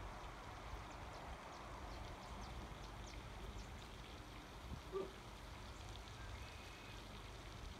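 Faint outdoor ambience: a steady rush of running water under a low wind rumble, with a brief chirp about five seconds in.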